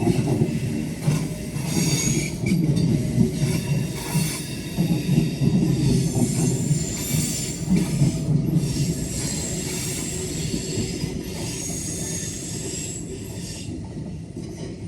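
Train moving along the station tracks: a low rumble of the cars with high-pitched wheel squeal that comes and goes, the whole sound fading away over the last few seconds.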